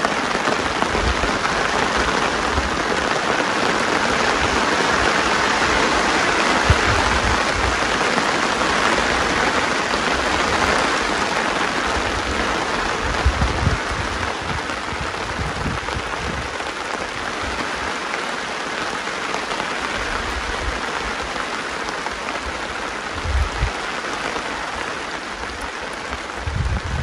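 Steady rain, an even hiss throughout, with occasional low thumps.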